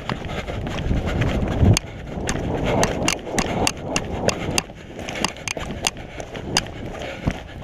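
Footsteps of a person running over dry, debris-strewn ground, with the gear they carry rattling. Sharp, irregular clicks and knocks run throughout.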